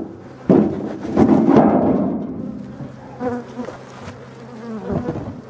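Honeybee colony buzzing at an open hive. Knocks and a scrape from a wooden hive box being handled and set on the hive are loudest in the first two seconds.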